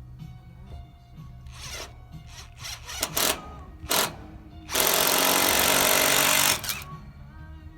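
A power tool running in short bursts, two brief ones and then one lasting about two seconds, over faint background music.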